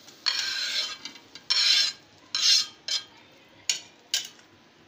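Metal spatula scraping cooked scrambled egg across a flat tawa griddle in about four short strokes, then two sharp clicks near the end as it knocks against the serving plate.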